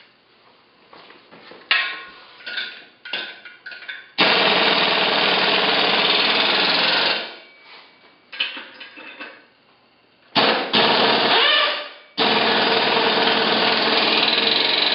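Corded electric impact wrench running in three bursts while it snugs up the steel leg bolts of a lathe stand: a run of about three seconds, then two more near the end. Short knocks and clatter before the first run as the socket goes onto a bolt.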